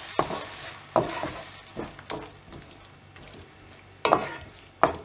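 Wooden spatula stirring and scraping thick tomato-onion masala around a kadai, about six scrapes at uneven intervals, over the sizzle of the paste frying in oil. The sizzle is loudest at the start and dies down after the first couple of seconds.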